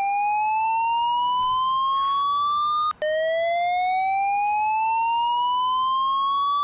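Fire alarm voice-evacuation speakers sounding the slow-whoop evacuation tone: a rising electronic sweep that climbs for about four seconds, breaks off about three seconds in, and starts again from the bottom.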